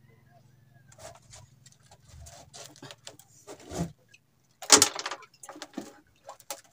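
Irregular rustles, clicks and scrapes of hands working a tangled fishing handline. The loudest is a sharp scrape about five seconds in, and a faint steady low hum lies under the first few seconds.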